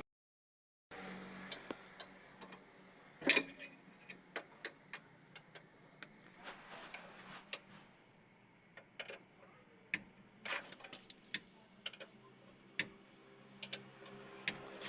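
Scattered sharp clicks and taps of hand tools on metal parts, irregular, one or two a second, over a faint steady hum. The sound begins after about a second of silence.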